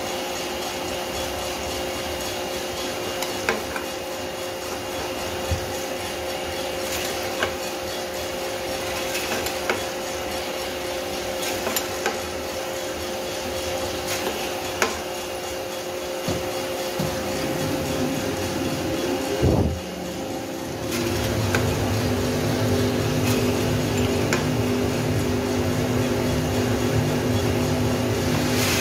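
Small drum coffee roaster running steadily, with scattered sharp pops of the beans in first crack and the scrape of the metal sample trier drawn out of the drum. About twenty seconds in, a second motor spins up and the running becomes louder and deeper.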